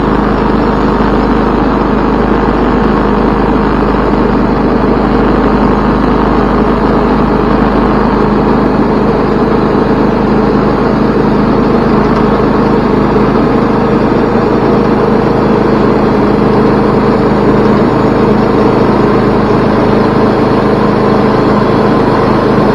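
Wood-Mizer LT20 band sawmill's engine running steadily at constant speed.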